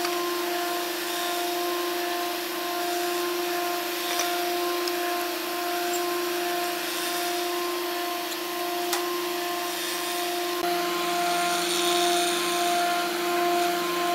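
Electric woodworking machine running with a steady whine over a rushing noise as it works wood.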